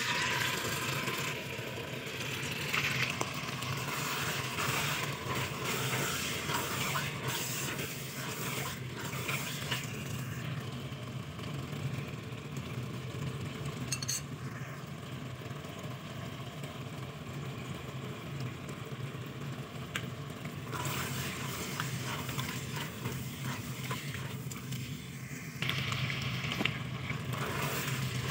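Food sizzling as it fries in oil in a pot, a steady hiss that starts suddenly, with a steady low hum underneath.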